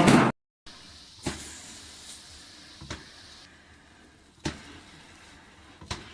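A louder sound cuts off abruptly in the first moment. Then four sharp knocks, evenly spaced about a second and a half apart, sound over a faint steady background.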